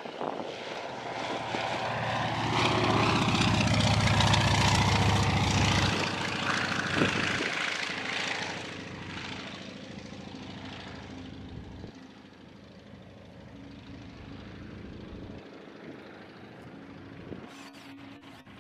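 Antonov An-2 biplane's nine-cylinder radial engine and propeller on a low pass, growing loud and close about two seconds in, then fading steadily as the aircraft flies away.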